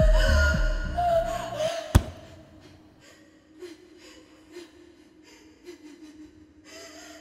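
Music with a heavy bass beat cuts off about two seconds in with a single sharp thump. After it comes a woman's faint, gasping breathing.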